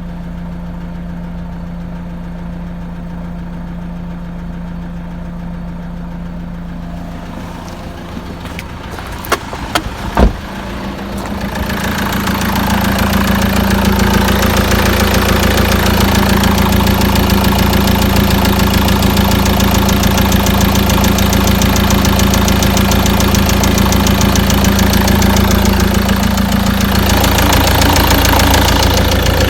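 Peugeot Boxer 2.2 turbo-diesel engine idling cold with a knock in the engine. It sounds muffled at first, then a couple of sharp clicks come about nine to ten seconds in. After that the engine grows louder and runs steadily with a fast clatter.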